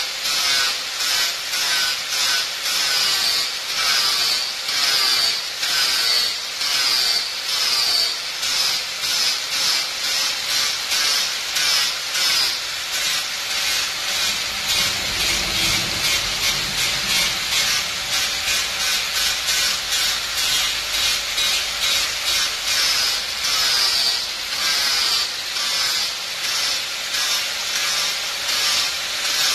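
Angle grinder with a sanding disc sanding a wooden knife handle, its high whine rising and falling about once a second as the disc is pressed to the wood and eased off.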